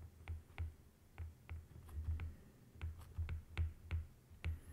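Stylus tip tapping and clicking on a tablet's glass screen during handwriting: irregular sharp clicks, about three a second, each with a dull low knock.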